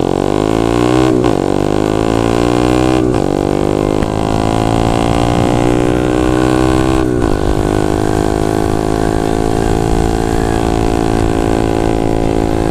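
Bored-up 177cc Yamaha Jupiter MX single-cylinder four-stroke engine under acceleration. The revs climb and drop sharply at three upshifts in the first seven seconds, then hold fairly steady at cruising speed, with wind rumble on the microphone.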